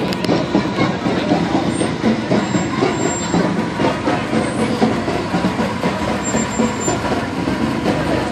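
A large bus's engine running at close range as the bus rolls slowly past, a steady low rumble.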